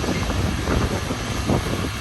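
Komatsu D41P bulldozer's diesel engine running steadily, with irregular clanks and rattles from the machine as it works gravel.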